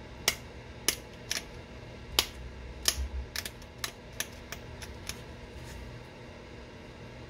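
Flintknapping a stone point: about a dozen sharp clicks at uneven spacing as small flakes snap off the stone, stopping about six seconds in.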